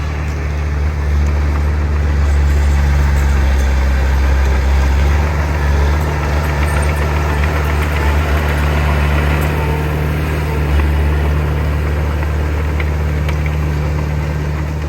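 Diesel engine of heavy earthmoving machinery running steadily with a deep low hum.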